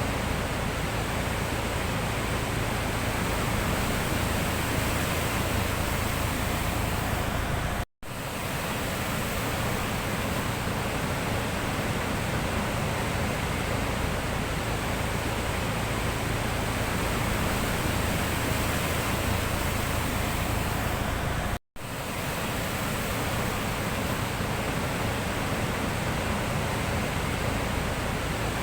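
Sea surf washing as a steady, even noise, cutting out completely for a split second twice.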